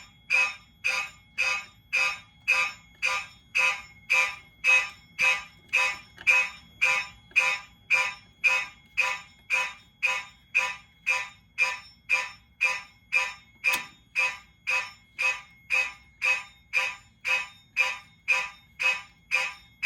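Fire alarm horns sounding in march time, switched on and off by a relay timer module: short, even blasts at about two a second.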